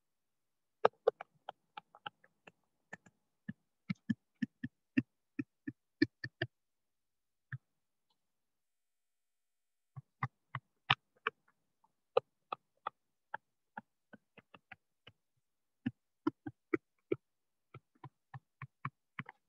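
A pen stylus tapping and ticking on a writing surface as words are handwritten: irregular runs of short, sharp clicks, with a pause of a couple of seconds midway.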